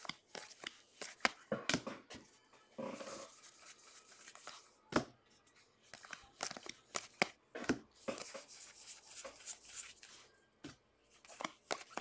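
Hands flipping and sorting through a stack of baseball trading cards: a quick, irregular run of sharp flicks and taps, with short rustling slides of card against card.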